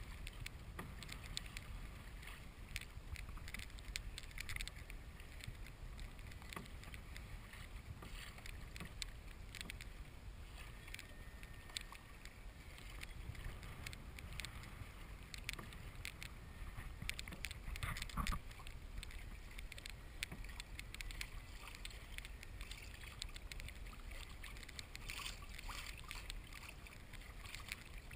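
Water lapping and splashing against the hull of a Hobie Pro Angler 14 pedal kayak under way, many small irregular splashes over a low wind rumble on the microphone.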